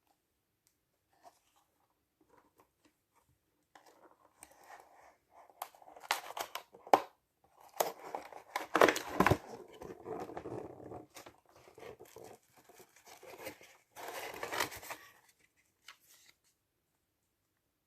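Keyboard packaging being opened and handled: irregular rustling and crinkling with sharp crackles. It starts about four seconds in, is loudest in the middle and dies away near the end.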